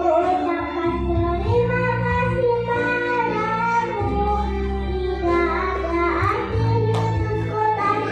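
A kindergarten children's choir singing a song together, holding long sung notes over instrumental backing music with a steady bass line.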